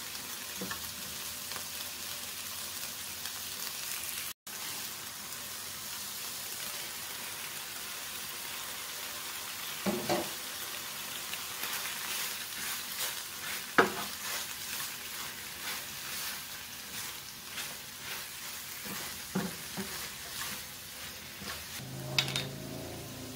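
Chicken and bok choy sizzling steadily in a nonstick frying pan while being stir-fried with a wooden spatula, which knocks and scrapes against the pan now and then.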